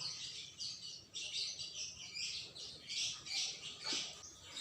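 Small birds chirping in a quick string of short, high chirps, several to a second.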